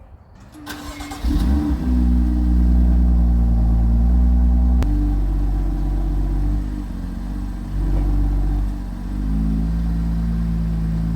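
BMW M2's straight-six engine starting: it cranks and catches with a brief flare of revs, then idles loudly and steadily, the idle speed shifting a couple of times.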